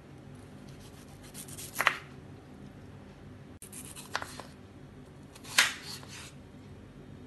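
Kitchen knife slicing through peeled chayote (chow chow) and tapping the wooden cutting board: a few separate cuts, a second or two apart.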